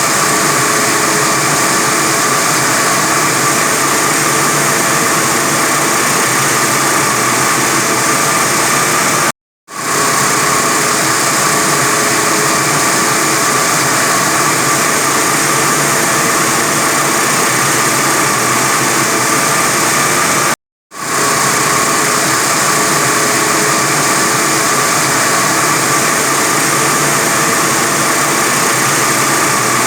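45 kW diamond wire saw running steadily through reinforced concrete, a loud, even machine noise with a steady whine. The sound drops out briefly twice, about nine and twenty-one seconds in, and quickly comes back.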